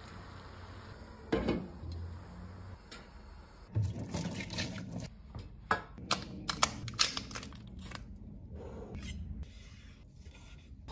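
Kitchen scissors cutting through a cooked lobster tail's shell: a run of sharp, crunchy snips in the middle, among quieter handling and scraping noises.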